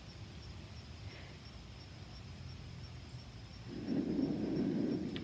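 Faint outdoor background, then a gust of wind rushing on the microphone for about a second and a half near the end.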